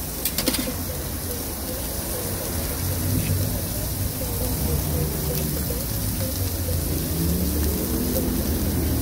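Egg cracked onto a hot flat-top griddle, a few sharp clicks in the first half second, then a steady sizzle of frying over a low rumble.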